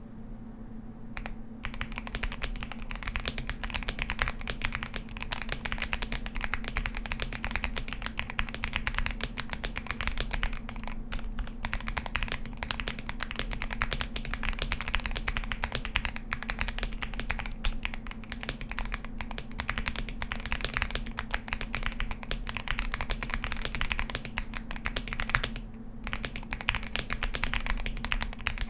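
Continuous typing on a Kit Adam V1 LEGO-style mechanical keyboard with S^2 switches, PBT doubleshot keycaps, plate-mounted Durock stabilizers, and foam and tape mods. The keystrokes come fast and dense from about a second in, with a brief pause near the end. A steady low hum runs underneath.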